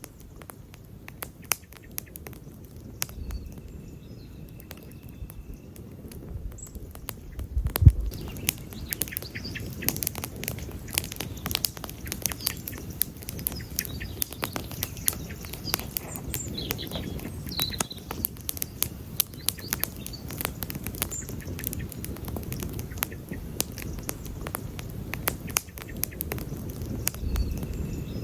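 Wood campfire crackling and popping over a low rumble, with one sharp, louder pop about eight seconds in and the crackles coming thicker after it.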